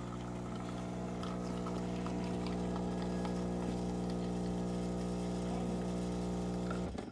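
Miele CVA4062 built-in espresso machine's pump running with a steady hum as the espresso shot is brewed, stopping abruptly near the end as the shot finishes.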